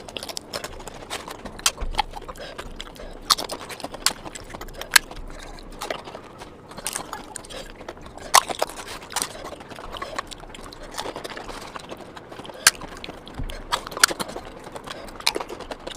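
Close-miked eating sounds: chewing and biting, with irregular sharp wet clicks.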